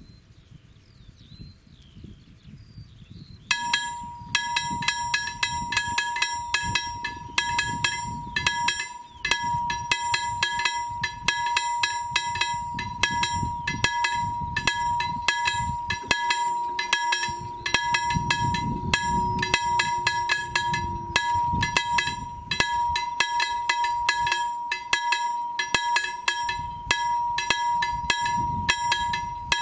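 Railway level crossing warning bell starts ringing about three and a half seconds in, warning of an approaching train: rapid, uneven metallic strikes over a steady high tone, continuing throughout.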